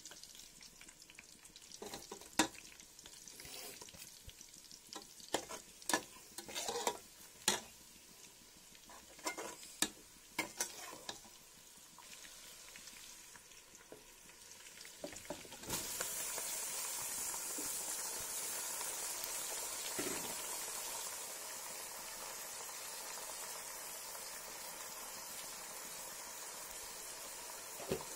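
A slotted steel ladle knocks and scrapes against a steel kadai while stirring food frying in oil, in separate sharp clicks. About sixteen seconds in, chopped tomatoes go into the hot oil and a loud, steady sizzle begins, easing a little a few seconds later.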